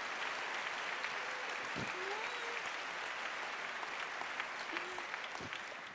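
Large audience applauding, the applause fading away near the end.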